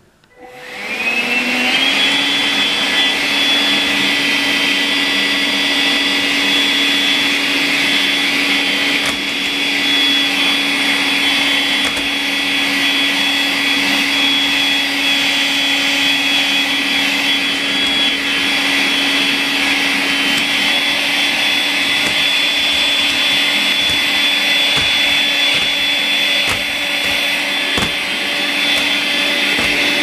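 Makita CL107FD 10.8 V cordless stick vacuum switching on and spinning up over about a second, then running steadily with a high whine as it sucks up short cut hair. A few faint clicks sound in the second half.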